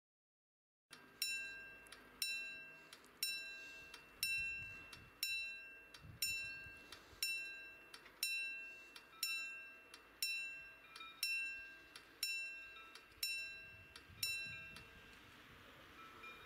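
Level crossing warning bell ringing, one stroke about every second with each ring dying away, about fourteen strokes in all, as the barriers come down to warn of an approaching train. The ringing stops shortly before the end, once the barriers are down.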